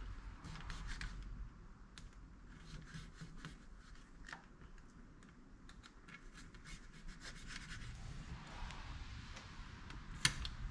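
Faint scratching, rubbing and small clicks of hands handling a rubber hydraulic steering hose and its metal fitting, with a sharper click about ten seconds in.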